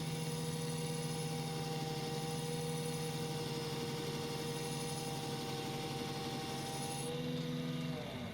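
Belt grinder running steadily with a leather honing belt for stropping the scissor edge with paste, giving a constant motor hum and whine. Near the end it is switched off and the pitch drops as it spins down.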